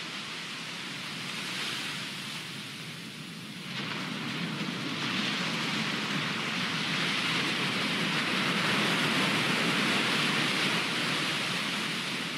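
Ocean surf breaking and washing up a sandy beach: a steady rushing noise that swells up about four seconds in and stays strong, easing slightly near the end.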